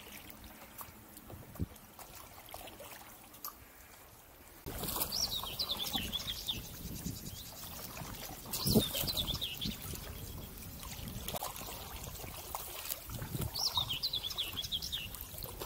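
Stand-up paddleboard paddles stroking through a slow river, water splashing and trickling off the paddle blades; the water sound gets louder about five seconds in. A songbird repeats a short phrase of high chirps about every four seconds.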